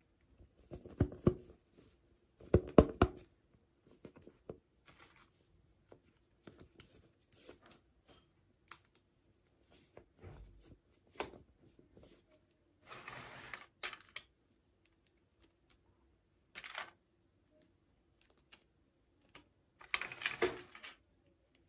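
Hands unboxing small plastic toys: scattered clicks and taps of plastic pieces and packaging, with two louder knocks in the first few seconds and short crinkling rustles of packaging about midway and near the end.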